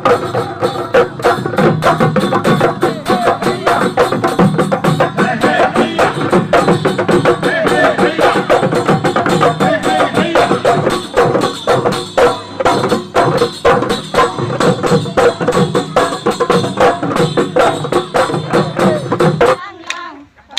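Bihu folk music with fast dhol drumming and a tune over it; it cuts off suddenly near the end.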